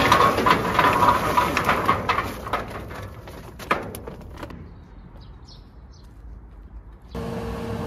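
Charcoal briquettes poured from a bag clattering onto a metal barbecue grill, with wind rumbling on the microphone. The clatter dies down after about three seconds to quieter outdoor noise with a few faint bird chirps, and a steady electrical hum starts abruptly near the end.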